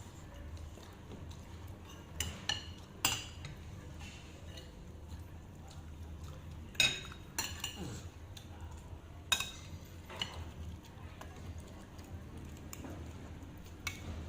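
Metal utensils clinking against dishes, with about eight sharp, irregular clinks spaced a second or more apart, each ringing briefly. A steady low hum runs underneath.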